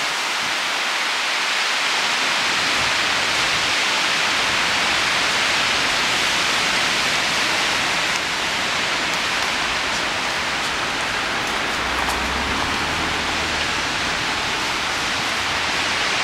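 Storm wind blowing hard through tall pine trees, a steady rushing noise, with a faint low rumble about three-quarters of the way through.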